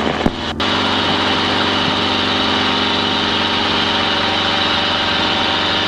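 Enstrom 280C helicopter's piston engine and rotor system running as a steady drone at flight power, heard from inside the open cabin as the helicopter lifts off for its test flight after a main rotor gearbox replacement.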